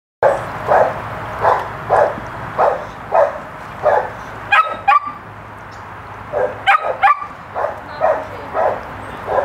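A dog barking in a steady run, about three barks every two seconds. The barks are broken by two pairs of higher yelps near the middle, with a short pause between them.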